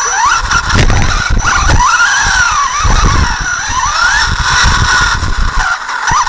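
On-board sound of an RC off-road car being driven: the motor and drivetrain whine, rising and falling in pitch with the throttle, over a steady high whine. Low thuds and rattles come from the chassis running over the track's bumps.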